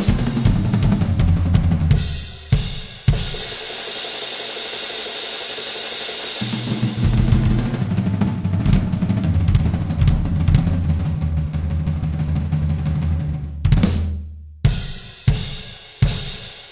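Ending of a rock song with drums played along on an electronic drum kit. A busy groove gives way to long held crashes over sustained band chords, then three final accented hits near the end, each left to ring and die away.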